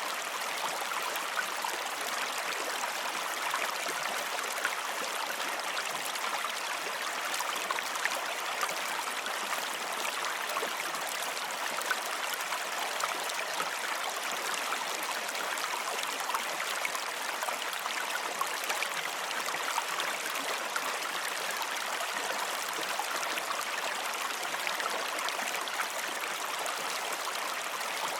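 Running water of a stream: a steady rushing wash with many small splashes and trickles.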